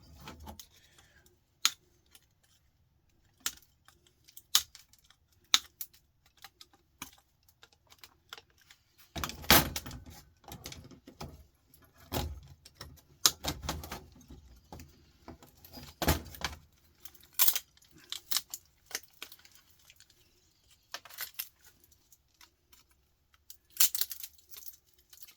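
Irregular clicks, snips and metallic clatter of hand tools cutting and prying parts off a desktop power supply's circuit board, with small metal pieces rattling on the table. Several louder knocks and rattles stand out, about nine, twelve, sixteen and twenty-four seconds in.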